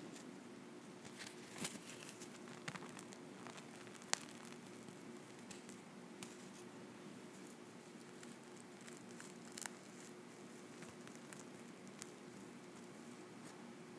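Dried peel-off face mask being slowly peeled from the skin close to the microphone: faint sticky crackling and tearing, with scattered sharp clicks, the loudest about four seconds in.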